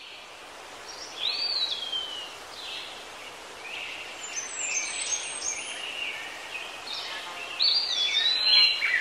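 Birds calling and chirping over steady outdoor background noise, with long sliding whistles about a second in and again near the end.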